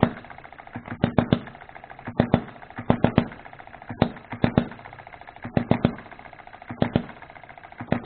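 Odds and Ends hit-and-miss model gas engine firing in quick groups of two to four sharp pops about once a second, coasting on its flywheels in between. Its ignition timing is being moved toward retard.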